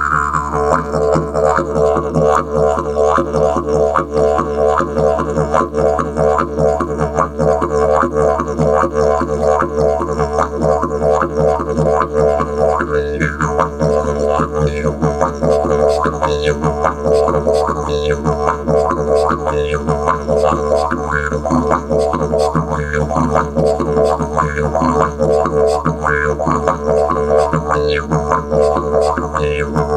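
Didgeridoo played solo: a continuous low drone with a fast, rhythmic pulse worked into it and brief brighter overtone accents now and then. The drone never breaks, kept going by circular breathing.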